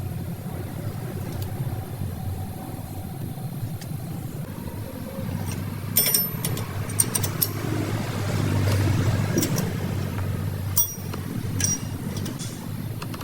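A motor vehicle's steady low rumble, swelling for a couple of seconds after the middle, with several sharp metallic clinks from about halfway through.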